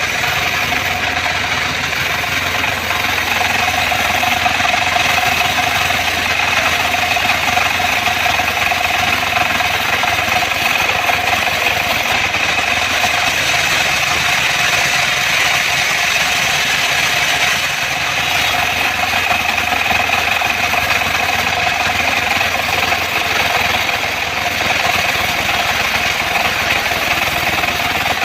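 A portable bandsaw sawmill running steadily: an even, loud mechanical noise with a steady high whine over it.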